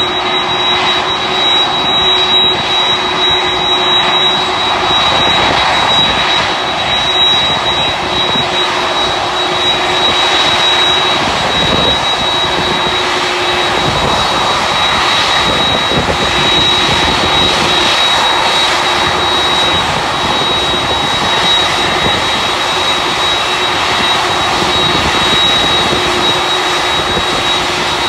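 Jet airliner's turbofan engines running loud and steady: a broad rush of engine noise with a constant high-pitched whine over it.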